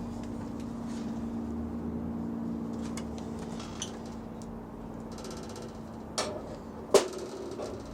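Small clicks and a brief ratcheting rattle from hand work on a doorbell and its mounting screws, ending with two sharp clicks near the end, the second the loudest, over a steady low hum.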